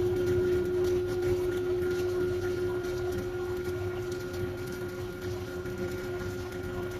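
Stick-welding arc burning with a GOODEL MP-3 rutile-cellulose-coated electrode: a steady crackle and buzz with a constant hum, easing slightly in level as it goes.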